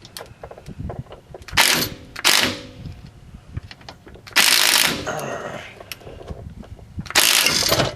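Impact wrench hammering in four short bursts, the longer ones near the middle and end, working a rusted sway bar end-link nut.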